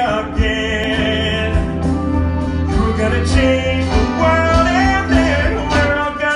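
Live musical theatre song: a singer's melody over band accompaniment with a steady low bass.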